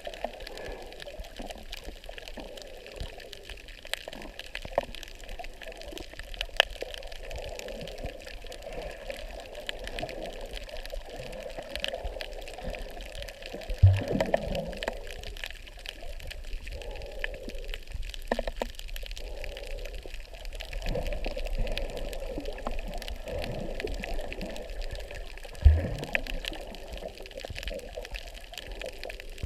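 Water sloshing and bubbling around a snorkeler's camera, with two sharp knocks, one about halfway through and one near the end.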